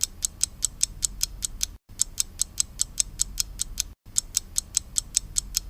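Rapid, even mechanical ticking, about five sharp clicks a second, like a clock or ratchet. The ticking drops out to dead silence for an instant about two seconds in and again about four seconds in, as at hard edits.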